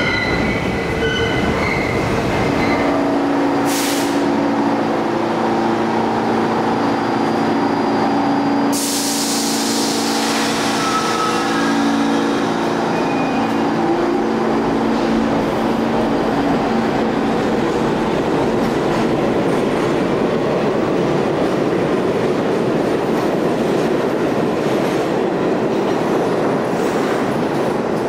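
New York City subway trains running past: a steady, loud rumble of cars on the rails. Wheels squeal with held tones through the first half, and a louder rushing hiss comes in about a third of the way through.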